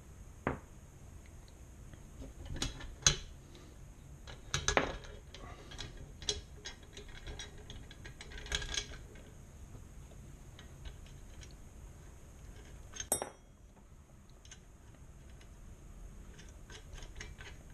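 Irregular metallic clicks, clinks and light knocks of a bolt being fitted and tightened on a metal luggage rack's mounting plate.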